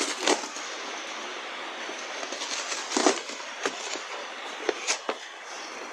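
Cardboard box being torn open by hand, a handful of short sharp rips of the cardboard and tape. Under them runs a steady hiss of background noise, which comes in through the house's sheet-metal roof.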